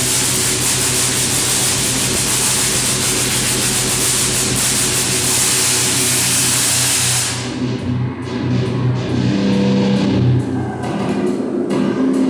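Large Tesla coil firing arcs: a loud, steady buzz with a low hum under it, cutting off about seven seconds in. After it, music with changing pitched notes carries on.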